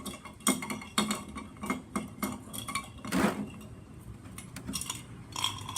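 Small metal bird-cage fittings clinking and rattling as they are handled: many irregular sharp clicks and knocks, with a longer, louder scraping rattle about three seconds in.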